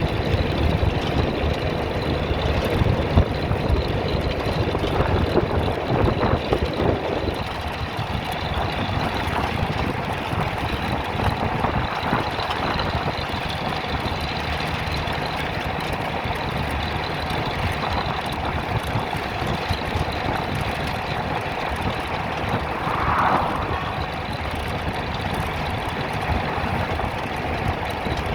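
A bus's engine running steadily, with road rumble, a little louder in the first several seconds.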